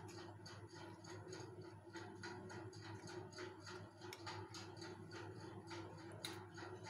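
Steel spoon scraping thick fudge mixture out of a steel pan, with a sharper clink about six seconds in as the spoon is set down in the pan. A faint steady hum and an even, fast ticking, about three a second, run underneath.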